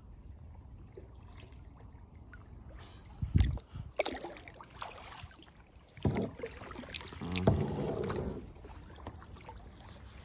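Kayak paddling: irregular paddle strokes splashing and water sloshing against the hull, loudest in a few surges through the middle.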